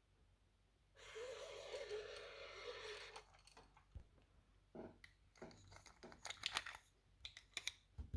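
Quiet handling of a plastic toy playset and its packaging. About a second in, a continuous rasping sound lasts about two seconds. Then come scattered light clicks and rustles of small parts.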